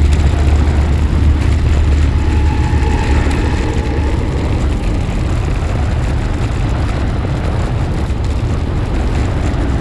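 Wind buffeting the microphone of a handlebar-mounted action camera as a road bike rolls along at speed: a loud, steady, low rushing noise.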